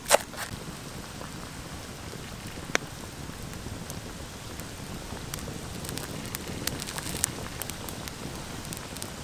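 A single knife chop on a wooden cutting board right at the start, then water boiling in a pot around a whole chicken: a steady bubbling hiss with scattered small pops.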